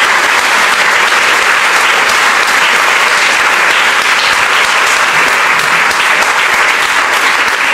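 Large audience applauding, a steady round of clapping that holds at the same level throughout.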